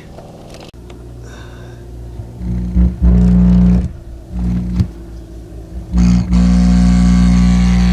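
A 1976 Magnavox console stereo speaker gives a loud, raspy, distorted buzzing hum as a lead is pressed to its terminal. The hum comes in two long stretches with short blips between them. The distortion is the sign of a bad speaker.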